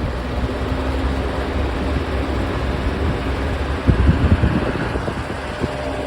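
Lasco Fanmaster 20-inch box fan running on high speed: a steady rush of air over a low motor hum. A few louder low-pitched surges come about four seconds in.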